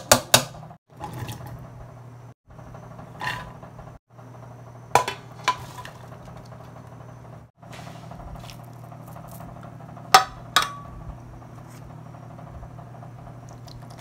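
Sharp metal clinks of tongs and a tuna can against a stainless steel mixing bowl while salad is tossed and tuna tipped in, a few at a time over a steady low hum. The loudest clink, about ten seconds in, rings briefly.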